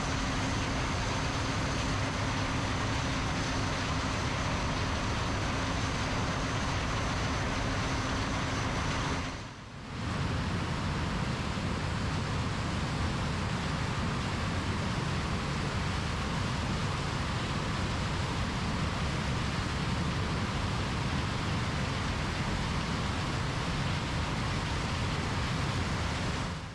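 John Deere combine harvesters working in corn: steady engine and machine noise, with a steady hum in it for the first ten seconds or so. The sound dips out briefly at about ten seconds and comes back as steady, lower-heavy machine noise without the hum.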